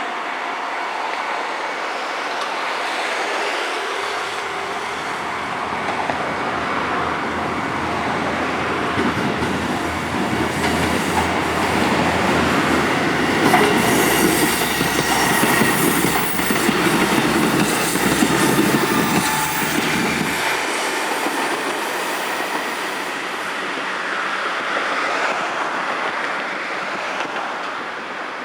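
KiHa 11 series diesel railcar passing over a level crossing: its diesel engine and wheels clacking over the rail joints. The low rumble builds a few seconds in, is loudest past the middle, and drops away suddenly about two-thirds of the way through.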